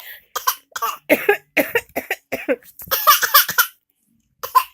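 A rapid run of about a dozen short coughs, three or so a second, then a pause of about a second and one more cough near the end. The coughs are copycat coughing, joining in with someone else's cough.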